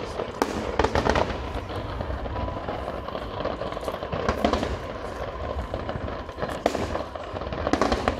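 Aerial fireworks display: shells bursting in a continuous crackling barrage over a low rumble, with sharper bangs standing out about a second in, midway, and near the end.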